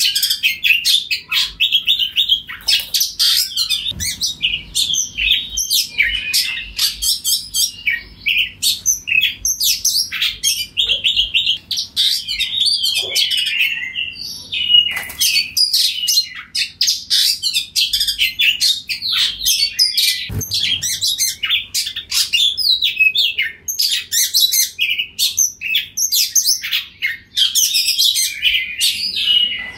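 Oriental magpie-robin singing a long, nearly unbroken stream of quick, varied chirps and whistles.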